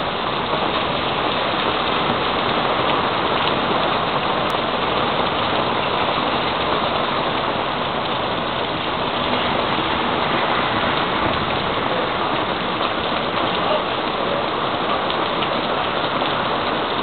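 Rain falling steadily in a storm, an even hiss with no breaks.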